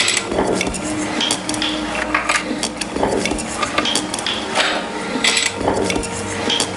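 Irregular clinking and tapping of metal, like hand tools at work in a craftsman's workshop, with a few steady held tones underneath.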